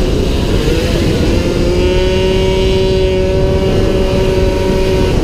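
A 48cc racing scooter's engine running hard at high revs, heard from an onboard camera with wind buffeting the microphone. The engine note dips briefly near the start, then climbs back and holds a steady high pitch.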